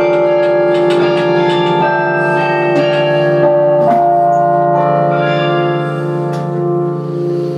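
A 47-bell Paccard carillon played from its baton keyboard: bronze bells struck in a quick run of notes whose tones ring on and overlap. New strokes thin out in the second half while the earlier notes keep sounding.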